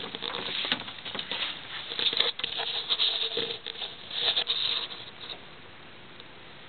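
Rustling and crackling handling noise on the camera's microphone as the camera is moved about, with something pressed against it near the lens; it dies down about five seconds in.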